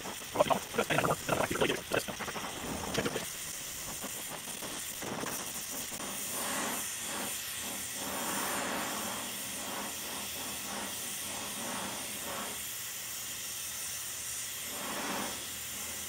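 Oxy-fuel torch flame hissing steadily while heating a cast iron wheel for brazing. A short stretch of fast, garbled voice is heard in the first three seconds.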